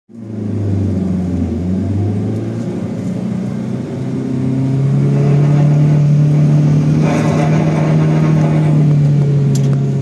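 A vehicle's engine running steadily while driving along a road. Its note rises about four seconds in and then holds at the higher pitch. A passing motorcycle adds a brief rush of noise around seven seconds in.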